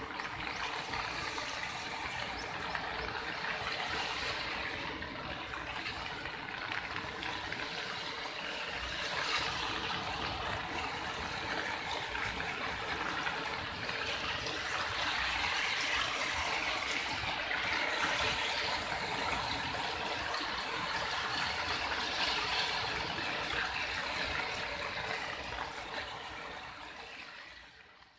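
Vidarbha river in flood, its full channel of water rushing steadily, fading out near the end.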